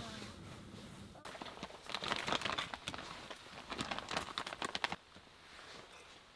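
Crinkling and rustling of a plastic bag of shredded cheese, with many quick light clicks, stopping about five seconds in.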